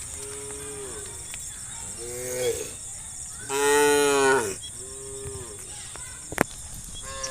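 Several cows in a herd mooing, about six calls one after another, the loudest and longest about halfway through. A single sharp click sounds near the end.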